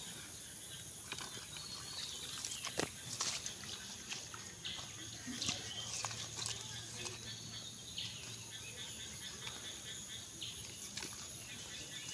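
Scattered rustles, clicks and squelches of feet and hands moving through wet grass and mud, over a steady high-pitched drone of insects.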